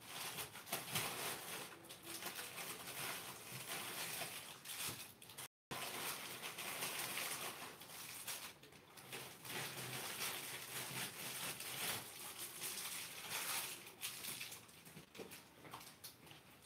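Irregular rustling and light clattering: handling noise of things being moved and rummaged through, with the sound dropping out for a moment about five and a half seconds in.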